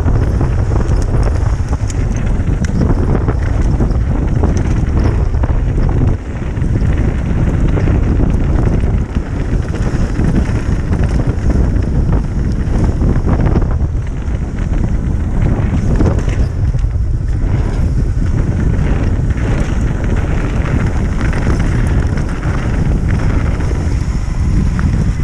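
Heavy wind buffeting a mountain biker's camera microphone while riding, a loud steady rumble with small knocks and rattles scattered through it.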